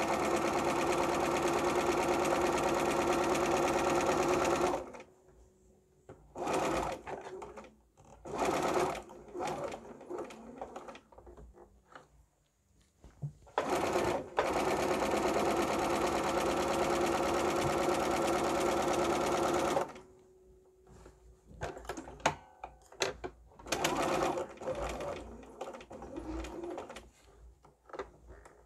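Electric sewing machine stitching a seam through quilt cotton, running in stretches: a steady run of about five seconds at the start, a couple of short bursts, a second run of about six seconds in the middle, then more short bursts near the end.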